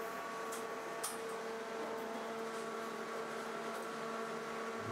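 Steady mechanical hum of a die-casting machine, with two light clicks about half a second and a second in.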